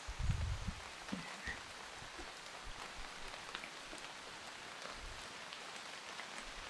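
Steady rain falling in a leafy forest, an even hiss with scattered ticks of drops striking close by. A brief low rumble near the start.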